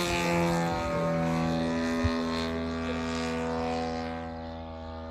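Two-stroke ZDZ 90cc petrol engine and 28x12 propeller of a large-scale model P-47 Thunderbolt droning steadily in flight, slowly fading toward the end as the plane moves away.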